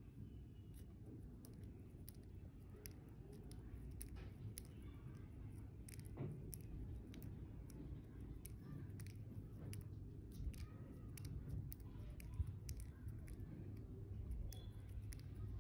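Fingertips picking at dry melon seeds laid on skin: faint, irregular clicks and taps of the seed shells over a low, steady handling rumble.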